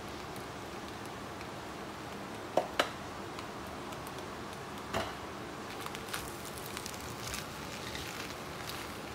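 Fried rice stir-fried in a wok: a low steady sizzle, with a spatula knocking sharply against the pan twice about two and a half seconds in and again about five seconds in, then lighter scraping and clicking as the rice is tossed.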